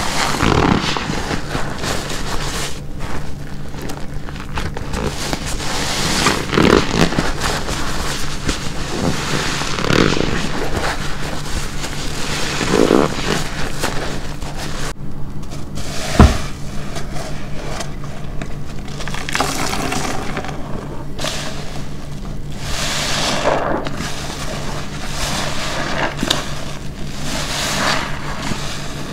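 Black car-wash sponge soaked with shampoo being squeezed over and over, a squeeze every three seconds or so, with one sharp knock about sixteen seconds in.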